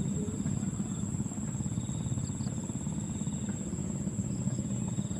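Insects droning steadily at a high pitch, with a few short paired chirps, over a constant low rumble.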